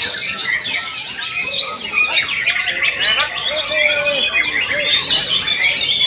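Many caged white-rumped shamas (murai batu) singing at once in competition, a dense, unbroken chorus of quick overlapping chirps and whistles.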